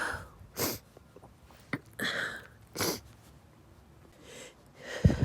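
A person in a pepper-induced sneezing fit: three short, sharp sneezes and breaths in the first three seconds, then a pause, then a louder sneeze near the end.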